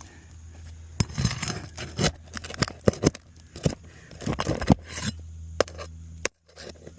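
A tool prying and scraping at asphalt roof shingles as nails are worked loose, in irregular scrapes and clicks over a steady low hum. The nails are pulling through the shingles.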